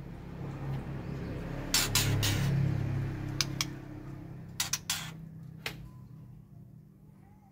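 A cluster of sharp clinks and knocks about two seconds in, followed by a few single clicks, over a steady low hum.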